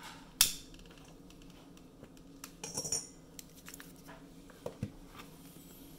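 A sharp, loud click of a utility lighter being fired at a syphon coffee maker's alcohol burner to light it. A few lighter clinks and knocks follow before three seconds and again near five seconds.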